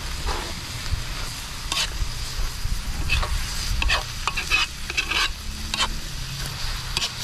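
A metal ladle stirring and scraping sautéed meat and vegetables in a large steel wok, with irregular scrapes and clinks against the pan over the sizzle of the frying food. A steady low rumble runs underneath.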